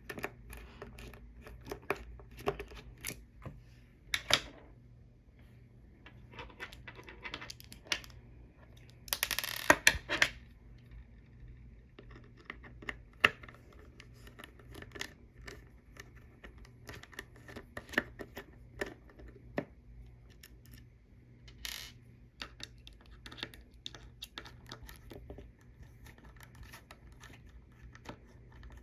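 Screwdriver working the screws out of a Samsung SpinPoint P80SD hard drive's metal top cover: scattered small clicks and scrapes of the bit in the screw heads. A louder burst of scraping and handling noise comes about nine to ten seconds in.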